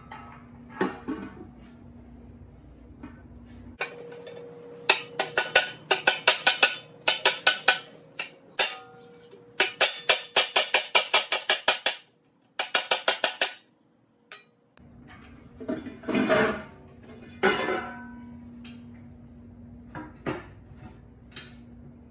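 Hammer striking a metal tractor seat: runs of sharp, ringing metal-on-metal blows, about three to five a second, between about five and thirteen seconds in, with a few lighter knocks of the seat being handled before and after.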